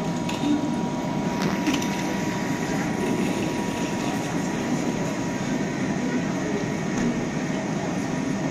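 Steady hum and hiss of a double-deck regional train standing at an underground platform, with a thin steady high tone over it. A few short clicks and rattles come about one and a half seconds in.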